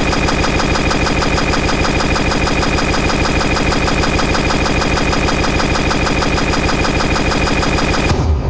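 A rapid, evenly repeating buzzing electronic loop, machine-like, with a steady high tone running through it; it cuts off abruptly near the end.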